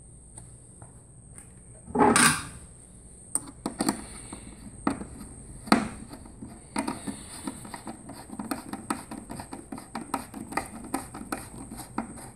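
Screws being driven by hand with a screwdriver into metal riv nuts through an anchor-mount puck: small metallic clicks and taps, with a louder clatter about two seconds in and again near six seconds. From about seven seconds on comes a quick run of light ticks, several a second, as the screwdriver turns.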